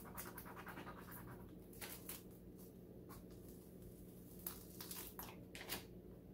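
Faint crackling and rustling of clear transfer tape being peeled slowly back off vinyl on a canvas, with a few sharp crackles scattered through, over a low steady hum.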